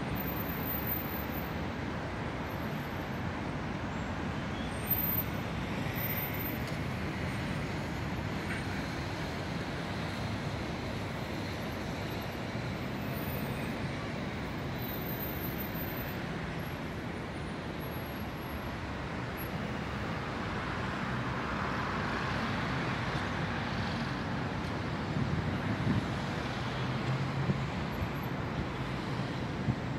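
Steady city road traffic noise, a continuous rush of passing cars and other vehicles, swelling a little about two-thirds of the way through.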